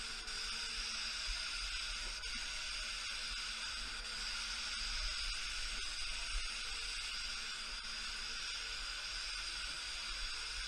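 Gravity-feed paint spray gun hissing steadily as it sprays base coat at about 29 psi, over a faint low hum.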